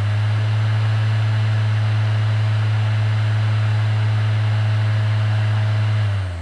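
Small electric fan motor of a mini air conditioner running with a strong, steady low hum and airflow hiss, stopping near the end.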